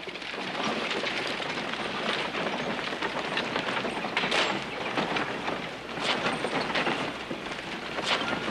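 Horse-drawn vehicle pulling away: a steady clatter of hoofbeats and rolling wheels on a dirt road.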